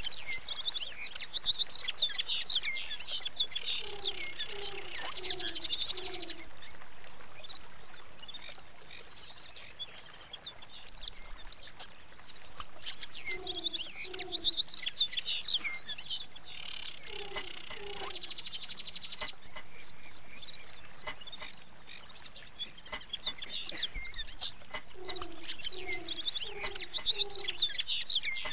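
Many small birds chirping and trilling together. Groups of two to four short, low hooting notes, about half a second apart, come in several times.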